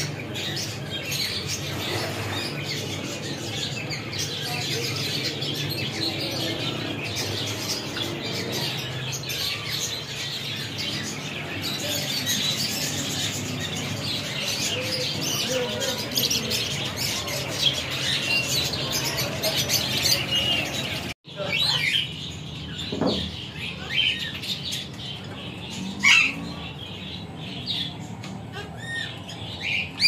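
Dense, continuous chattering and twittering of many small cage birds, budgerigars among them, in a crowded aviary. It breaks off about two-thirds of the way in, and then come a few separate sharp parakeet calls, one louder than the rest.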